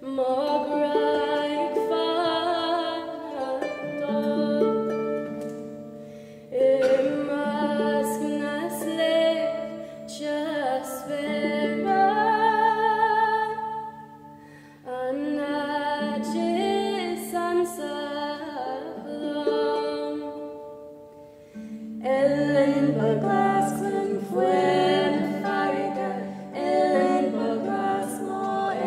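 Music: singing with a plucked-string accompaniment, in four long phrases of held notes, each rising in again after a brief dip.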